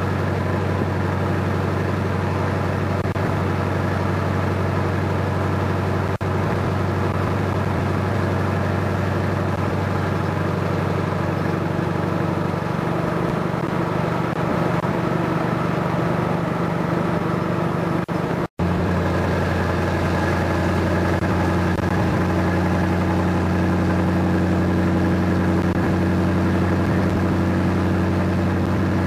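A vehicle engine running steadily at road speed: a constant low drone with several steady pitched tones. It cuts out for an instant a little past halfway and comes back with the tones steadier and stronger.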